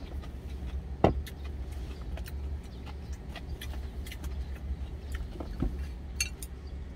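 Clicks and clinks of food containers and chopsticks being handled, with a sharp knock about a second in, over a steady low hum.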